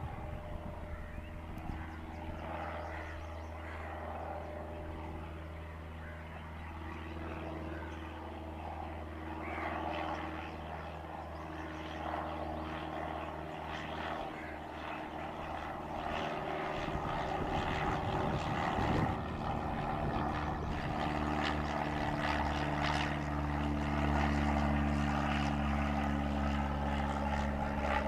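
Cessna 172's piston engine and propeller droning steadily, growing louder about halfway through as the aircraft draws nearer or runs up power.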